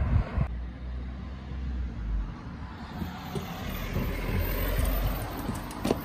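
Freestyle scooter wheels rumbling over concrete paving, getting louder as the rider rolls closer, then a sharp knock near the end.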